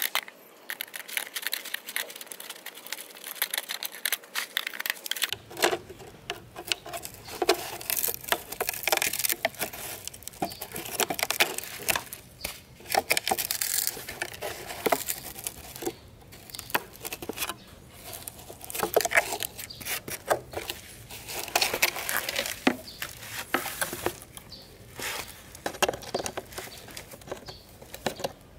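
Irregular scraping, rubbing and small clicks of hand work on rusty fan parts, with a change in the background sound about five seconds in.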